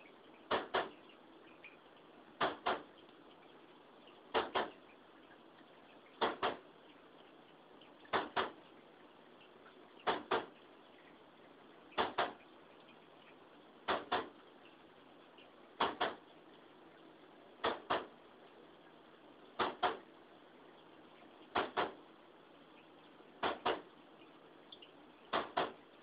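Wall-mounted air conditioner's automatic filter-cleaning mechanism: the gear that drives the filter is slipping and skipping, giving a loud double clack about every two seconds over a faint steady hum. The noise is the sign of a failed filter-drive gear.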